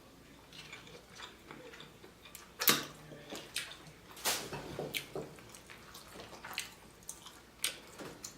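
Close-up wet eating sounds from a seafood boil: shellfish shells cracking and snapping, with mouth smacks and slurps, in scattered sharp clicks. The loudest snap comes a little under three seconds in.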